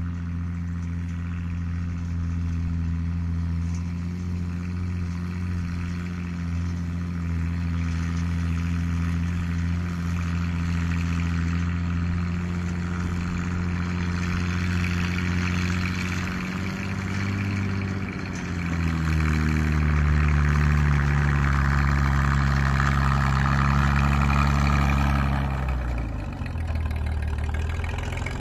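Engine of an Sd.Kfz. 135 Marder I self-propelled gun, the Delahaye petrol engine of its Lorraine 37L tracked chassis, running steadily as the vehicle drives closer. The engine note shifts pitch about two-thirds of the way through, runs louder from there, then drops back near the end.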